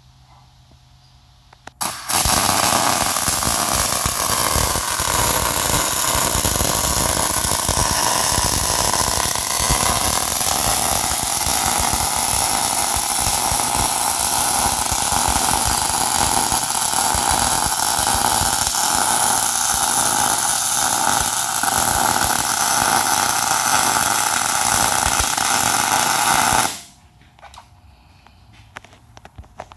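Electric welding arc laying a continuous bead on a steel stair stringer: a steady crackling hiss that starts about two seconds in, runs unbroken for about 25 seconds and cuts off suddenly near the end.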